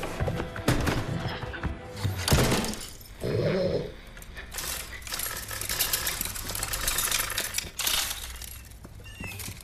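Workshop sound effects in an animated film: a busy run of knocks and clatters over a low, steady hum, with background music.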